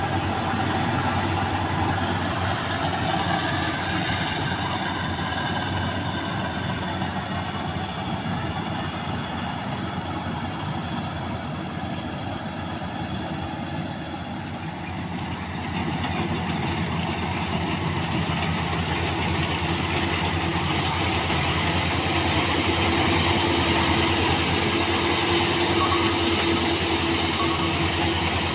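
Maxxi Bimo 102 combine harvester running: a steady engine drone with mechanical rattling. About halfway through the sound changes and grows slightly louder.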